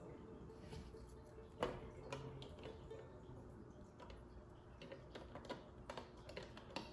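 Small plastic LEGO pieces being handled and pressed together: faint, scattered light clicks and taps, the loudest about a second and a half in and a quick run of them near the end.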